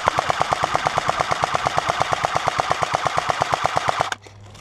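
Airsoft electric gun firing one long full-auto burst of rapid, evenly spaced shots, cut off suddenly about four seconds in.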